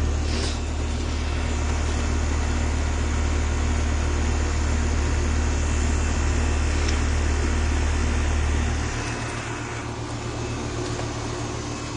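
2022 4-ton Bryant Legacy Line heat pump running in heat mode: a steady low hum under an even rushing noise, the hum dropping in level about nine seconds in.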